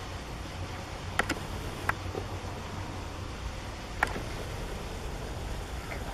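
Steady low background hum of an indoor room, with a few sharp clicks: a quick double click about a second in, another near two seconds, and one about four seconds in.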